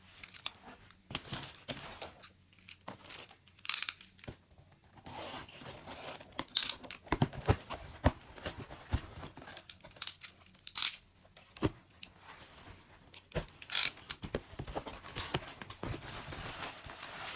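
Packaging being torn open and handled: crinkling and rustling with several short, sharp rips, the loudest about 4, 6.5, 11 and 14 seconds in.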